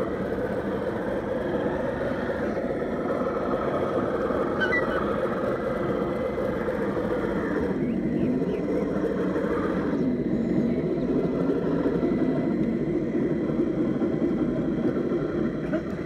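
RC model tug's Beier sound module playing a simulated marine diesel engine, a steady rumble while the model manoeuvres under power.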